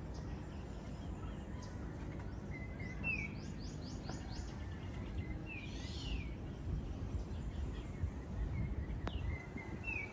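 Birds chirping outdoors: a few short high calls about three seconds in, around six seconds and near the end, with a quick run of short rising notes a little after the first call. A steady low rumble of outdoor ambience lies underneath.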